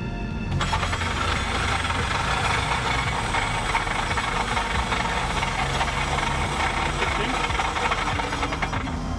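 Starter motor held on, making a sustained metallic whir and rattle as the ring gear spins while the engine does not turn over. The owner suspects the ring gear or the flywheel has come off. The sound starts about half a second in and stops shortly before the end.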